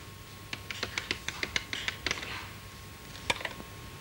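Push-button desk telephone keys clicking as a number is dialled: a quick run of about ten clicks, then one more about three seconds in.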